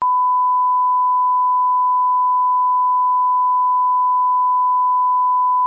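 Colour-bars line-up tone: a single steady 1 kHz test tone, loud and unbroken at one pitch, used to set audio levels before the programme.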